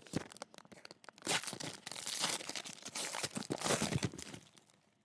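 A trading card pack wrapper being torn open and crinkled by hand: a run of crackling rustles that stops about four and a half seconds in.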